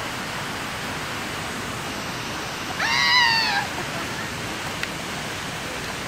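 Steady rush of running water. About three seconds in, a single high-pitched call from a person rises, holds and falls off over less than a second.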